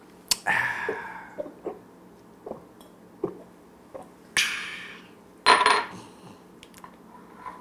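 Small drinking glasses clinking and knocking: a sharp clink just after the start, a few light taps, and a louder ringing glass clink about five and a half seconds in.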